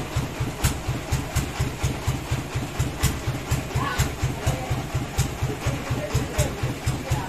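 Sawmill's engine running steadily at idle, an even low chugging of about four beats a second.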